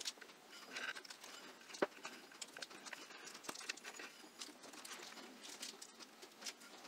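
Faint, scattered light ticks and patter of coarse sugar crystals sprinkled by hand onto unbaked scones on a parchment-lined baking sheet.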